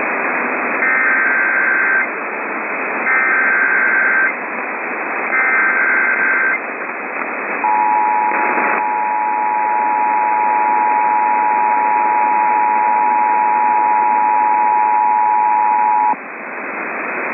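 Emergency Alert System tones over radio static: three short bursts of SAME header data, each a fast warble between two high tones, then the two-tone attention signal, a steady dual tone held for about eight and a half seconds before it cuts off. The tones mark the station activating a severe thunderstorm warning, with a brief static crackle just after the long tone begins.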